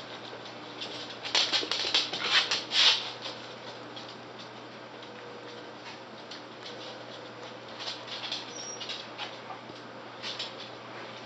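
Westie puppies scuffling on a hardwood floor, their claws clicking and scrabbling. The loudest burst comes between about one and three seconds in, followed later by a few lighter scattered clicks.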